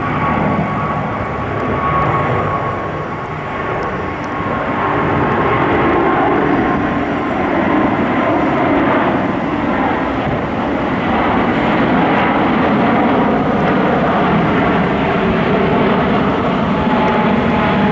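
Airbus A350-900's Rolls-Royce Trent XWB turbofan engines at takeoff thrust as the airliner climbs out: loud, steady jet noise, with a thin high whine in the first few seconds that fades away.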